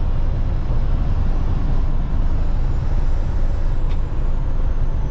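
Steady low rumble of a semi-truck's diesel engine and road noise, heard from inside the cab while driving on the highway.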